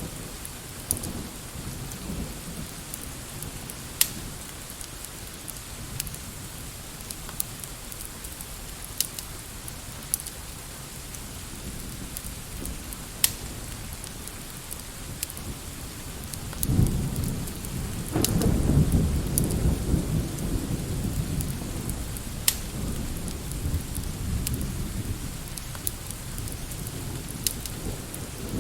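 Steady rain with a low roll of thunder that swells about two-thirds of the way through and fades over several seconds. Scattered sharp pops sound throughout.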